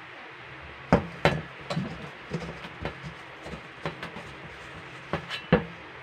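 A stainless steel mixing bowl and spatula knocking and scraping as sticky melted marshmallow is scraped out of the bowl: a run of irregular clatters and clicks, the loudest about a second in and near the end.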